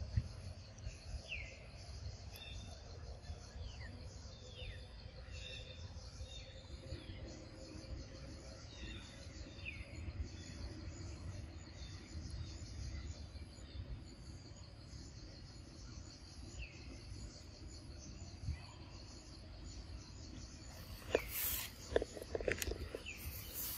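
Insects chirping in a steady, even pulse, with a few faint short chirps scattered through it. Near the end come several sharp clicks and knocks.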